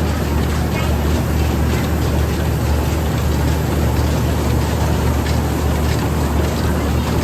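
Heavy machinery or an engine running steadily: a loud, even drone with a strong low hum and a noisy rumble over it.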